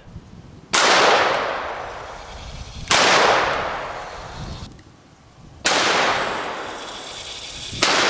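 Four shots from a Smith & Wesson Model 610 revolver in 10mm, two to three seconds apart, each a sharp crack followed by a long fading echo.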